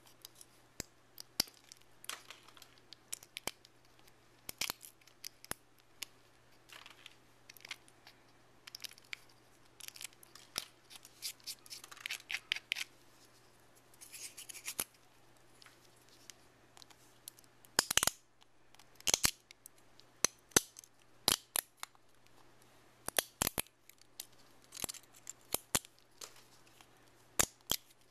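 Flush-cut side cutters snipping and snapping support material off a 3D-printed plastic ball bearing: irregular sharp clicks and cracks with short scraping sounds in between, the loudest snap about eighteen seconds in.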